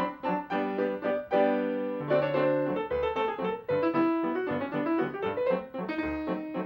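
Piano music accompanying a silent film, with notes and chords struck several times a second.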